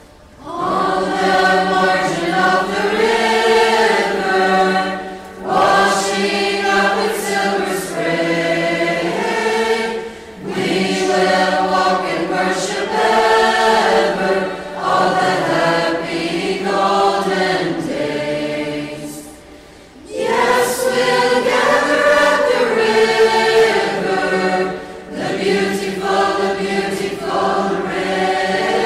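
A choir singing, several voices together in long sustained phrases broken by short pauses.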